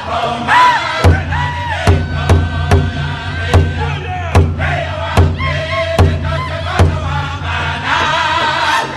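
Powwow drum group singing high-pitched, sliding vocal lines together over a large bass drum struck in unison by all the drummers, a steady beat of about two and a half strokes a second. The drum drops out for about a second at the start, then comes back in.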